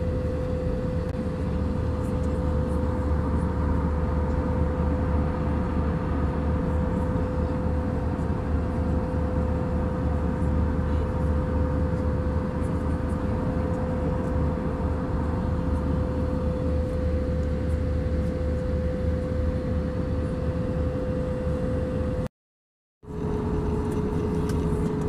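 Airbus A320 cabin noise in flight from a window seat: a steady low rush of engines and airflow with a constant hum tone. It cuts to silence for under a second near the end, then resumes with the hum a little lower.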